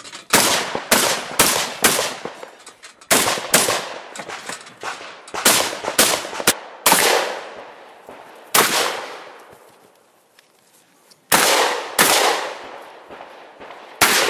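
A shotgun fired in quick strings of two to four shots, each shot with a ringing tail. There are about fifteen shots in all, with a gap of about a second and a half near the ten-second mark before firing resumes.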